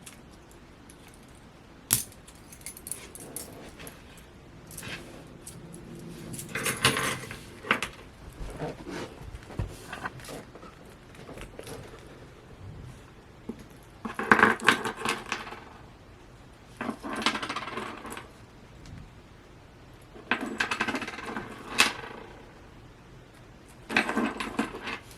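Close-up handling of a vinyl-figure keychain and its packaging. A sharp click comes about two seconds in, then several second-long bursts of crinkling and small metallic clinks of the keyring.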